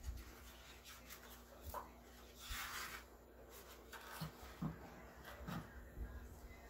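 Faint handling sounds of packaging as a GoPro Hero 9 Black is lifted out of its white plastic tray: small clicks, a short scraping rustle about two and a half seconds in, then a few soft knocks as the tray is set into a carrying case.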